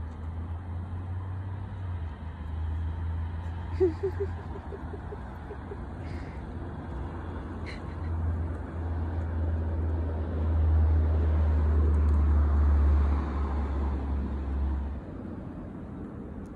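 Road traffic: a motor vehicle's engine running with a steady low drone that grows louder about ten seconds in and stops shortly before the end, with a few faint clicks.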